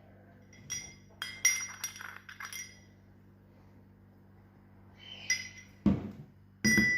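Kitchen utensils clinking against a ringing dish. A run of light clinks comes in the first few seconds, then a quiet stretch, then a heavier knock and louder ringing clinks near the end.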